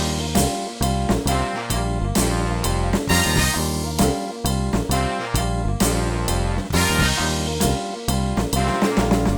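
Instrumental music in a jazzy swing style, played on a Roland FA-06 keyboard workstation and a Roland TD-17 electronic drum kit: bass line and keyboard chords over a steady drum beat, with a quick run of drum strikes near the end.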